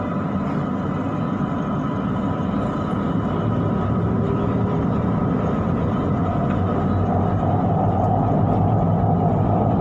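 Siemens Inspiro metro train heard from on board as it picks up speed on elevated track: a steady rumble of wheels on rail with motor hum, growing louder, with a higher tone coming in about seven seconds in.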